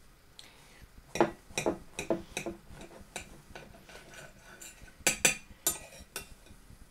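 Serrated steak knife clinking against a ceramic plate while cutting a burger in a bun: a run of about five sharp clinks a little over a second in, then a few more near the end.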